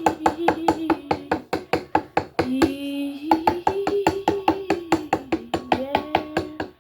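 Slime being stirred and worked in a bowl, clicking rapidly and evenly at about six or seven clicks a second, while someone hums a held, slowly wandering tune over it.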